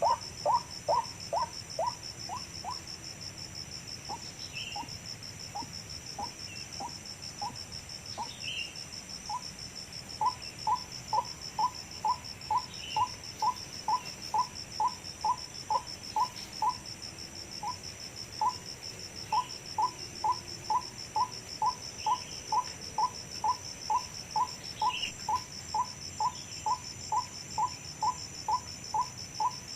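White-breasted waterhen calling: one short note repeated over and over, about two a second, with a few gaps. A steady, pulsing chorus of crickets runs high above it.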